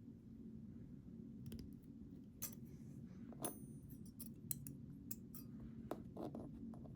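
Small metal clicks and taps of lock pins, springs and tools being handled while a pin-tumbler lock is reassembled, scattered and irregular, with one brief high metallic ring about three and a half seconds in.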